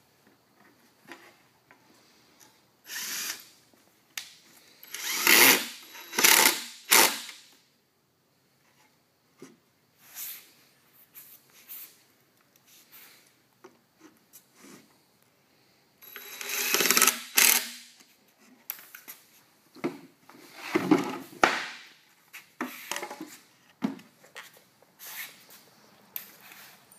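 Cordless drill run against wood in repeated bursts of a second or two, stopping and starting with short pauses between.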